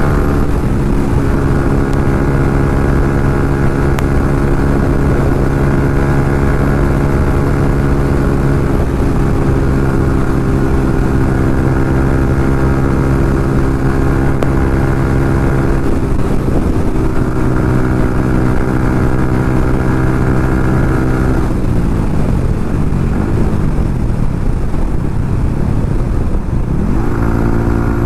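Yamaha MT-15's single-cylinder engine through an SC Project aftermarket exhaust, ridden at steady high revs with a few small shifts in pitch. About two-thirds of the way through, the revs fall away for several seconds, then climb again near the end. A low wind rumble runs underneath.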